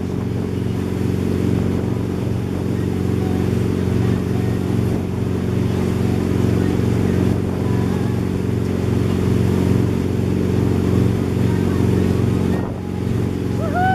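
Tow boat's engine running with a steady drone, under the rushing noise of the wake and wind.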